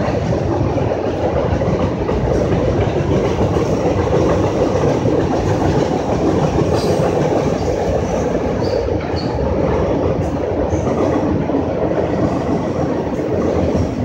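Freight cars of a CN freight train rolling across a steel railway bridge: a steady, loud rumble and clatter of wheels on the rails.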